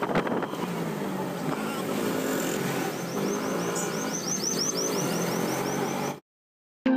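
Auto-rickshaw engine running steadily with street traffic around it, heard from inside the moving auto-rickshaw. The sound cuts off suddenly about six seconds in.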